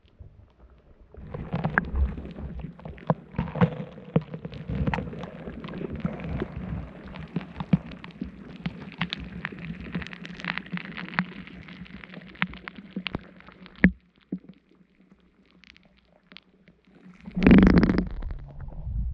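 Muffled water noise with many small knocks and clicks, heard through a GoPro's waterproof housing as it hangs underwater on a fishing line. It goes almost quiet for a few seconds, then there is one loud muffled thump near the end.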